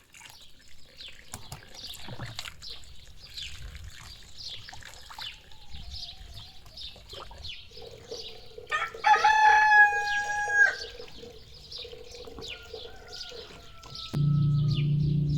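A rooster crows once, a loud call of about two seconds about nine seconds in, over steady chirping of small birds. Near the end a low steady hum starts suddenly.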